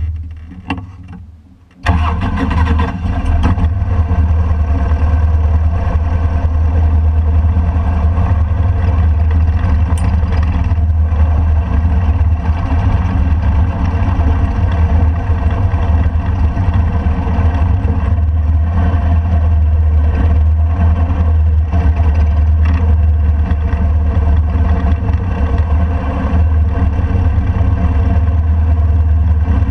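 Touring motorcycle being started: a short burst at the start fades away, then the engine catches about two seconds in and runs steadily with a deep, low sound.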